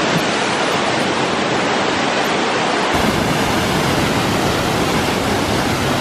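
Mountain waterfall and stream rushing over rocks: a loud, steady rush of falling water. About halfway through it turns fuller and deeper.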